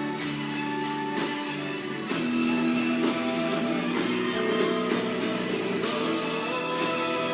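Live band playing an instrumental break of the song, with guitars to the fore; the band gets louder about two seconds in.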